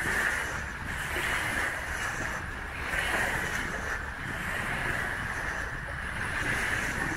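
Small wind-driven waves breaking and washing onto a sandy riverbank, a continuous hiss of water that swells and eases every second or so.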